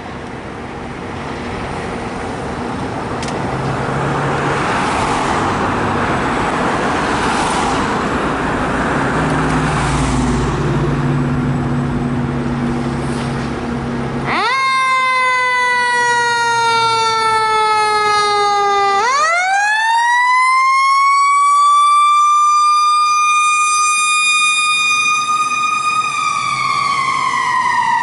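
Fire engine responding: for the first half a rising rumble of the truck's engine and road noise, then its siren cuts in abruptly, slides down in pitch, winds quickly back up to a high steady wail, and falls away again near the end.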